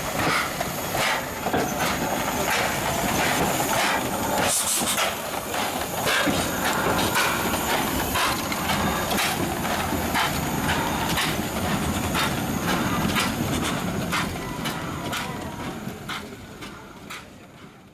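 Steam locomotive running: repeated knocks and clanks over a steady hiss of steam, with a louder burst of hiss about four and a half seconds in. The sound fades out near the end.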